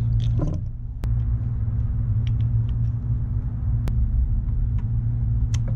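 A steady low hum, with single sharp metallic clicks about a second in, near four seconds and near the end, from brake pads and small metal parts being handled at a motorcycle's front brake caliper.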